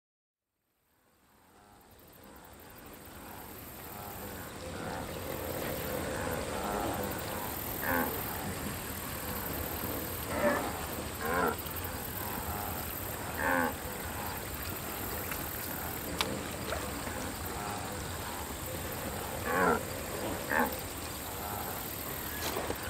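Wildebeest grunting now and then, about six short calls, over a steady outdoor background with a high hiss that fades in from silence over the first few seconds.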